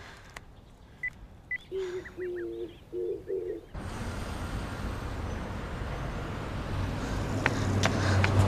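Quiet outdoor ambience with a few faint bird chirps and a short run of repeated lower bird calls. About four seconds in it cuts to the steady hiss and low hum of a shop interior, with a couple of sharp clicks near the end.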